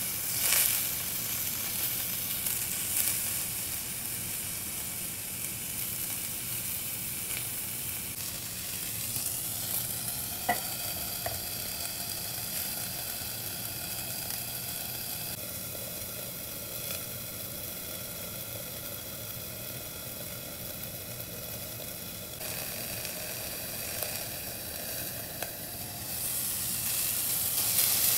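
Skewered liver and vegetable kebabs sizzling on a hot flat griddle pan: a steady frying hiss, with a sharp click about ten seconds in and the sizzle growing louder near the end.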